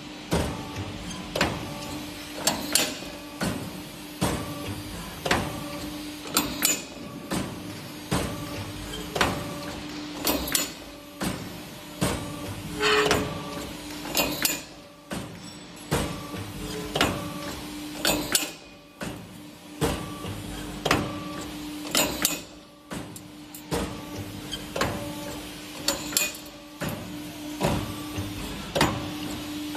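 Hydraulic CNC tube punching machine punching holes in a steel tube: a sharp punch stroke and clack about every second or so, with a steady hum underneath throughout.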